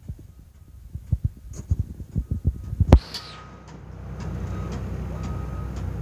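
Wind buffeting the microphone in irregular low thumps, ending in a sharp click about three seconds in. A steady low engine rumble follows, with a faint short beep repeating about twice a second.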